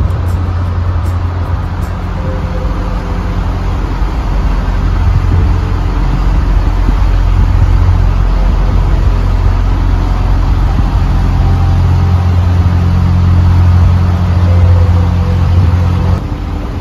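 Narrowboat engine running steadily, a deep hum that cuts off suddenly near the end.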